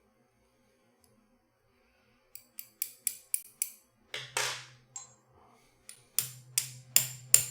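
Small sharp metal clicks and taps from working pins out of a disassembled Assa Twin Exclusive lock core: a quick run of about six clicks, a brief scraping swish, then another run of clicks.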